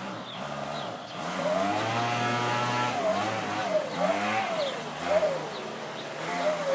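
Leaf blower running, its pitch swinging up and down about once a second.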